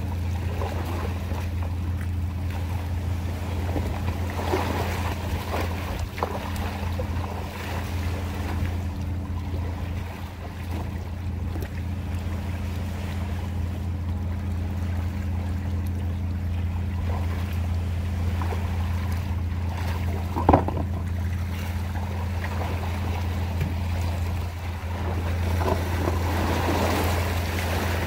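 Steady low hum, with small waves lapping at a rocky shore and wind on the microphone. One sharp knock comes about twenty seconds in.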